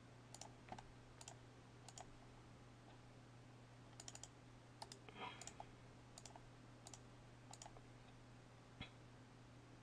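Faint computer mouse clicks, about a dozen spaced irregularly with a quick cluster about four seconds in, over a steady low hum.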